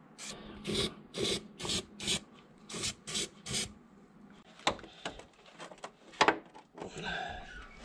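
Aerosol can of weld-through primer sprayed in a quick run of short hissing bursts, about three a second, onto a steel repair patch, followed by a few sharp clicks from handling the can and panel.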